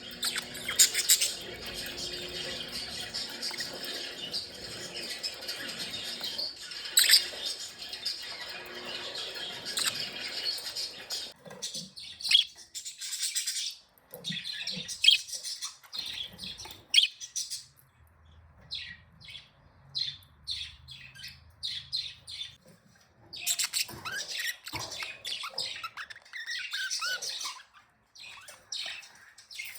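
Budgerigars chirping and chattering: a dense run of overlapping chatter for about the first eleven seconds, then short separate chirps with brief pauses between them.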